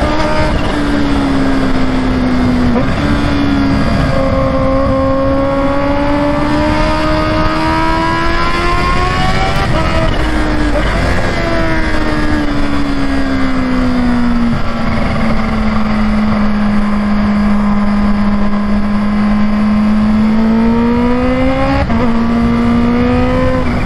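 Kawasaki Ninja H2's supercharged inline-four engine running at speed. Its note climbs under throttle, falls away as the throttle is eased, holds steady for several seconds, then climbs again with quick gear changes near the end, over steady wind noise.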